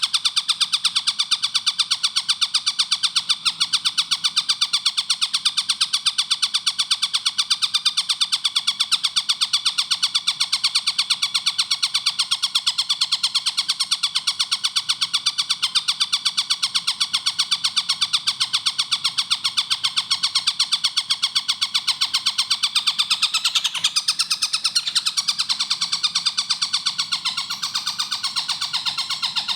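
Tengkek buto, a kingfisher, calling in a fast, unbroken run of sharp repeated notes.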